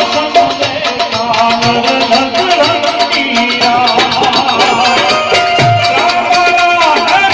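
Music: a held, wavering melody line over fast, steady percussion.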